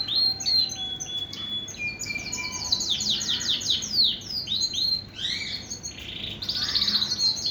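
Male Shirazi canary singing without a break: a fast, varied run of high downward-sweeping whistles and held notes, with a rolling trill near the end.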